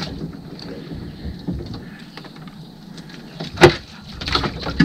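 Wire-mesh crawfish trap being handled against a boat, with one sharp loud knock about three and a half seconds in, followed by a few lighter rattling knocks.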